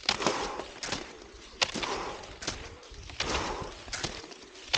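Cross-country skis swishing over groomed snow, with a sharp click of pole tips planting about every 0.8 seconds in a steady striding rhythm.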